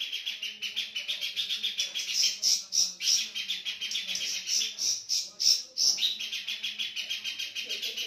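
Caged Horsfield's babbler (pelanduk semak) singing at night: a fast, unbroken run of short high chirping notes, about six a second.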